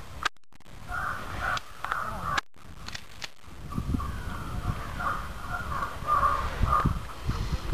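Crow caws: a couple of short calls near the start, then a run of repeated caws in the second half, with low rumbling underneath and brief dropouts where the sound cuts out.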